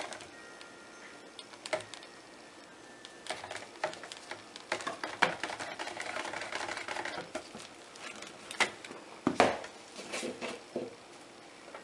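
Stick blender knocking and scraping against the inside of a plastic bucket while soap batter is stirred by hand: a run of irregular clicks and taps, with the loudest knocks near the end as the blender is stood in the bucket.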